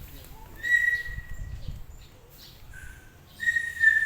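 Two long, high, even-pitched animal calls, one about half a second in and one near the end, with a shorter, lower call between them.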